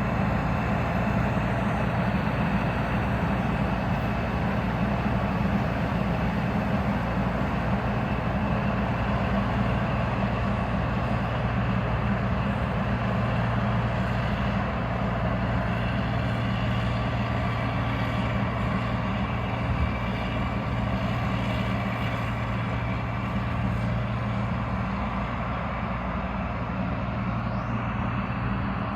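Combine harvester running steadily in the field: a constant low diesel engine drone with machinery noise over it.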